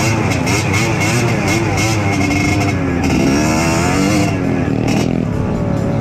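Trail motorcycle engine running while being ridden, its revs rising and falling with the throttle.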